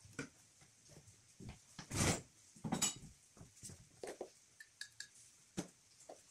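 Gloved hands working a silicone rubber hose on an engine's pipework: scattered light knocks and rubbing, with a louder scrape about two seconds in followed by a sharp clink.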